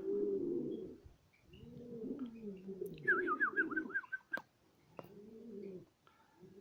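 Domestic pigeons cooing in repeated bouts, with a short run of quick high chirps from a small bird about three seconds in.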